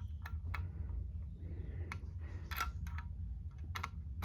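Scattered light clicks and rattles of a key being fitted into the lock of a Simplex fire alarm pull station, the sharpest click about two and a half seconds in.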